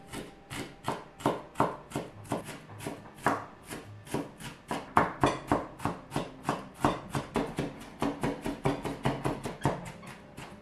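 Chef's knife mincing onion on a wooden cutting board: a steady run of quick knocks, about four a second, as the blade strikes the board.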